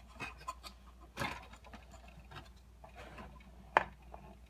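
Light, irregular clicks and scrapes of a small flat screwdriver working the plastic feed gears inside a 3D Systems Cube 3 filament cartridge to advance the PLA. There is a brief scrape about a second in and one sharper click near the end.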